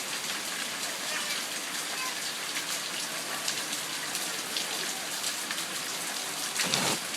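Steady rain falling, an even hiss, with a short louder patch of noise near the end.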